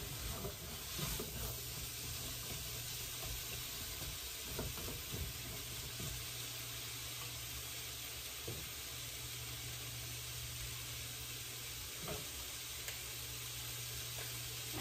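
Green beans frying in oil in a hot pan: a steady sizzle, with a few light knocks of the utensil as they are stirred.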